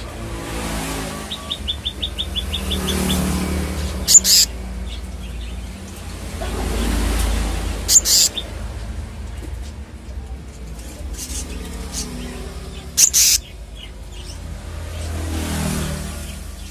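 Young black-naped monarch calling: a quick run of about ten high notes early on, then three short, loud, harsh calls spaced about four seconds apart. Passing vehicles rise and fall underneath.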